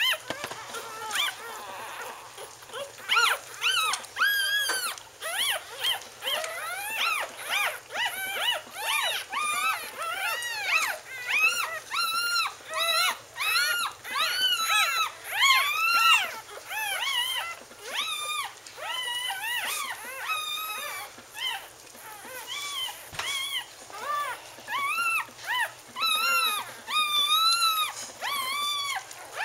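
Newborn Scottish Terrier puppies squeaking and whimpering as they nurse: a steady stream of short, high-pitched, rising-and-falling cries, several a second and often overlapping.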